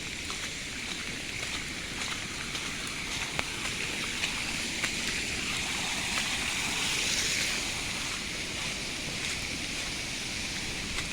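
Rushing floodwater from a swollen stream or runoff, a steady hiss that swells about seven seconds in, with a few light clicks.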